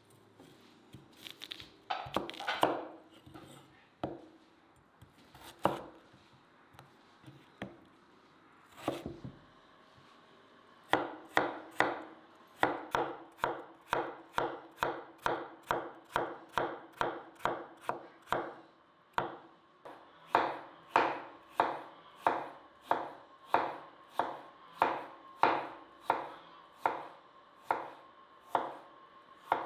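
Large kitchen knife chopping peeled raw potatoes into thin slices on a wooden cutting board: a few scattered cuts at first, then about a third of the way in a steady run of about two knife strikes a second.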